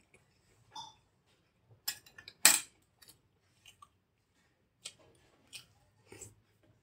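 A metal spoon clinks and scrapes against a steel plate while scooping soft idli. The sharpest clink comes about two and a half seconds in, among quieter mouth and eating sounds.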